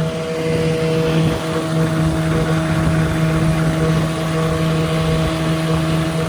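1969 Johnson 9.5 hp two-cylinder two-stroke outboard motor running steadily at speed under way, with a steady engine drone over a rush of noise.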